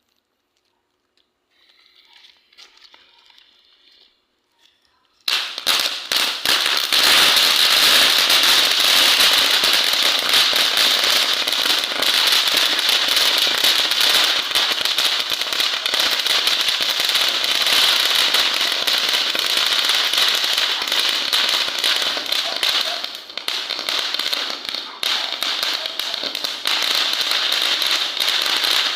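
Mt. Everest firework fountain erupting: a loud, dense crackling hiss starts suddenly about five seconds in, after near silence, and eases a little near the end.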